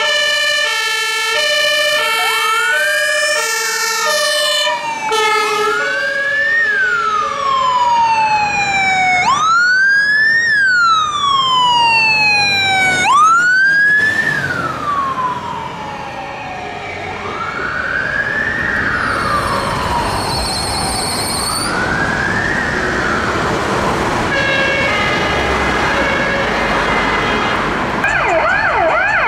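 Sirens of emergency vehicles on an emergency run, here an ambulance and a fire engine. First a two-tone siren alternating between two pitches. Then a wail that rises quickly and falls slowly, repeated many times, slower in the middle, and a short fast yelp near the end.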